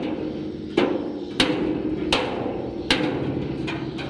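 Hammer blows on the steel side of a used Hino 500 dump-truck bed, about five irregular strikes each leaving the plate ringing briefly.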